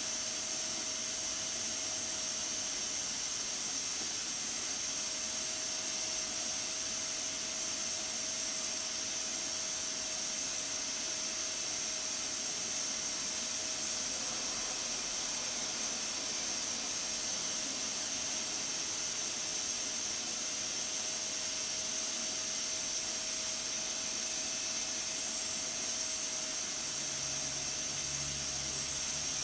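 Pressure cooker up to pressure, steam hissing steadily from its weighted pressure valve, with a faint steady tone underneath.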